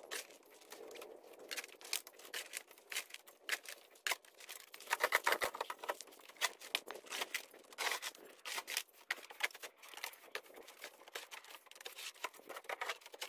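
Shovelling and ground-clearing: irregular crunching and scraping of a shovel working gravel in a pickup bed, and a hand tool dragging through dry leaves and dirt. There is a denser run of quick scrapes about five seconds in.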